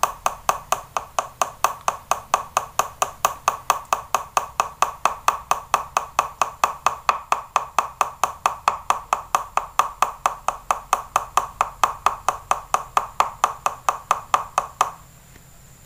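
Rapid, even tapping of a bamboo skewer against a plastic tub, about five taps a second, stopping near the end. The skewer holds a freshly dipped latex lure, and the tapping spreads the wet yellow latex coat evenly.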